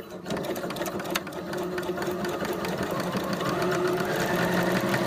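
Electric sewing machine running steadily, its needle stitching a 3D-printed plastic button onto trouser fabric.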